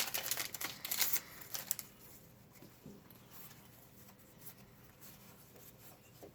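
Crinkling of a foil booster-pack wrapper and handling of trading cards for about the first two seconds, then only faint soft card-handling ticks.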